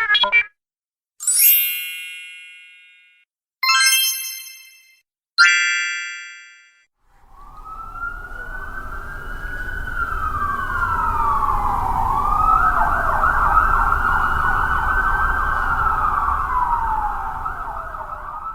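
Three separate chime-like tones, each struck and ringing away over a second or two, then about seven seconds in an emergency vehicle siren wailing slowly up and down over a low rumble.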